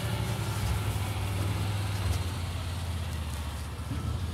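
A vehicle engine idling with a steady low hum, with a few faint clicks over it.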